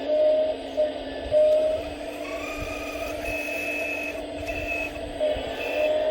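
Hydraulic pump and electric motor of a 1/14-scale RC Volvo 360 excavator running with a steady whine. Higher tones come and go as the hydraulic functions are worked.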